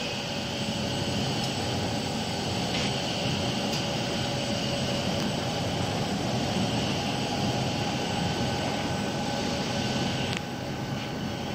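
Suntech ST-WFIM-T/G woven fabric inspection machine running, its rollers winding fabric onto a roll: a steady machine hum with several constant whining tones and a few faint clicks, easing off slightly near the end.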